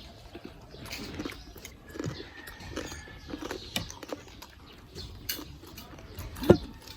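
Close-miked chewing of crispy deep-fried pork belly (lechon kawali): irregular crunching and crackling bites, with one sharper, louder crunch near the end.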